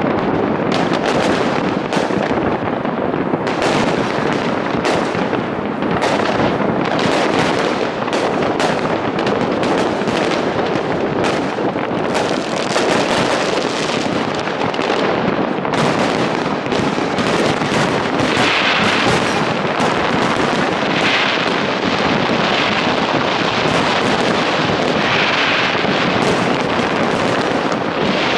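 Fireworks display: a dense, continuous barrage of bangs and crackling that run together without a break, with brighter crackle in the second half.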